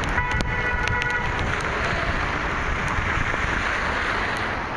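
Steady rain and wet-road traffic noise: a continuous hiss with scattered sharp taps. A short pitched tone sounds for about a second near the start.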